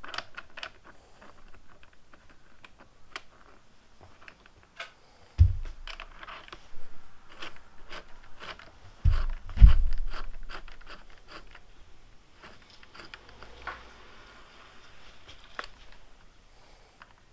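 Small clicks, taps and scrapes of hands refitting the bar-end parts on a motorcycle handlebar. There is a dull thump about five seconds in and two more close together near ten seconds.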